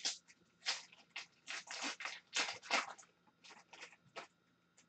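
A foil-lined Upper Deck Tim Hortons Team Canada hockey card pack being torn open by hand, the wrapper crinkling in a run of short, irregular crackles.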